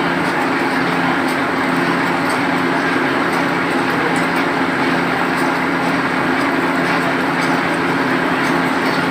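Screen-printing machine running with a steady mechanical hum and a constant rushing noise, with faint scattered ticks.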